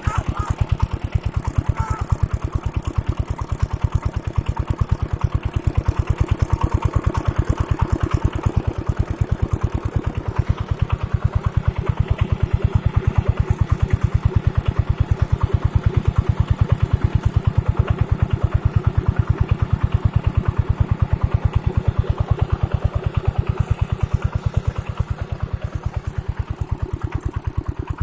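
Old stationary water-pump engine running steadily, with a fast, even beat of firing pulses.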